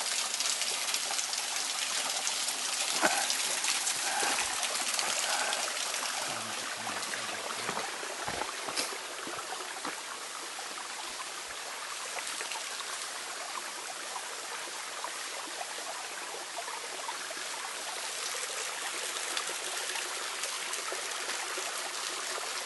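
Small mountain stream trickling and splashing over rocks, a steady watery hiss. A few light knocks stand out about three seconds in and again near the nine-second mark.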